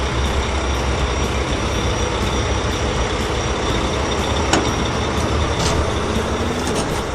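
Heavy construction vehicle machinery running: a steady, loud engine-and-machine noise with a deep rumble underneath, with a few short sharp clicks about four and a half and six seconds in.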